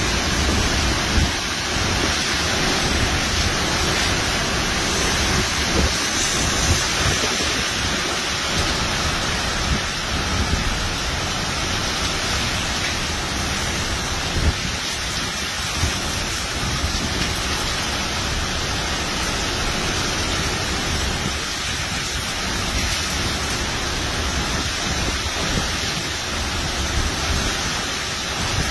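Hurricane wind and heavy rain: a steady rushing noise with a deep low rumble underneath and a few brief louder gusts.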